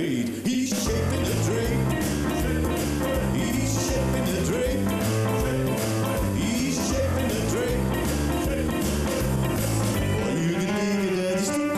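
Recorded dance music with a steady beat and a bass line, the low end coming in about half a second in.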